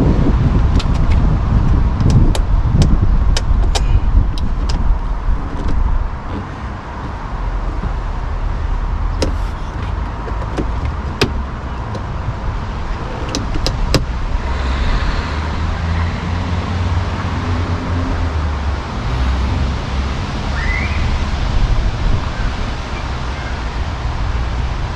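Sharp clicks and taps of the door handle and its plastic and metal parts being worked into place on a car door, scattered through the first few seconds and again around the middle, over a steady low rumble.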